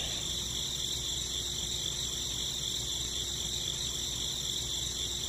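Steady, unbroken chirring of crickets, a high insect chorus that starts and cuts off abruptly.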